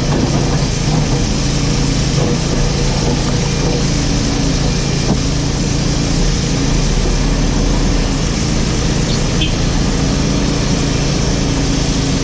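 JCB 4CX backhoe loader's diesel engine running steadily at an even pitch. A couple of faint short squeaks come near the end.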